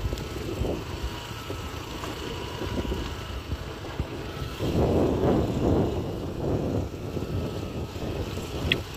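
Wind buffeting the microphone on a moving motorbike, over the low running of its engine; the buffeting grows louder about halfway through.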